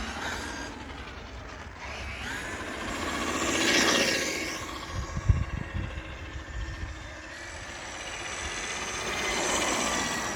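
Traxxas MAXX electric RC monster truck's drivetrain whining as it accelerates past twice, with a clicking that is unwanted and annoying in a new truck. A few low thumps midway.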